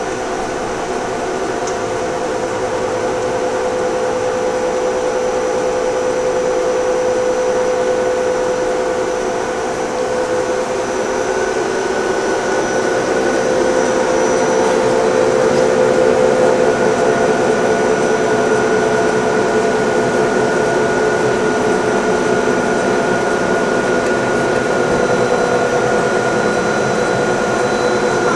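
1989 YCM Supermax TC-2 CNC lathe running an automatic cycle: its spindle and drive give a steady whine of several tones over a mechanical hum, the tones drifting slightly in pitch as the spindle speed changes.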